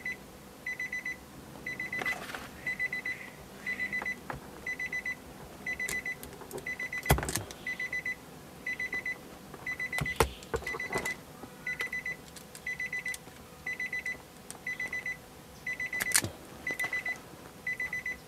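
An electronic beeper sounds a short burst of rapid high beeps about once a second, over and over. Sharp clicks break in a few times, including a loud one about 7 s in and another about 10 s in, as a wire stripper works on the dashcam's power cable.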